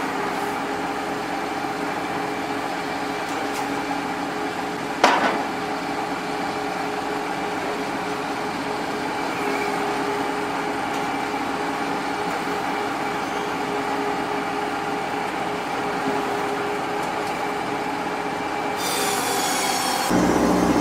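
Sawmill saw running steadily through wood with a steady whine, and one sharp knock about five seconds in. Near the end a different, louder machine sound cuts in.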